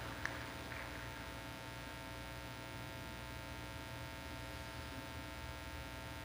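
The last scattered claps of applause die away within the first second, leaving a steady low hum with a few fixed tones.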